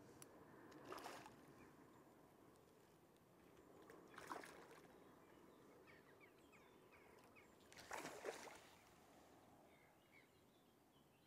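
Faint water splashes, three of them a few seconds apart, from a hooked carp thrashing at the surface as it is played in close to the bank.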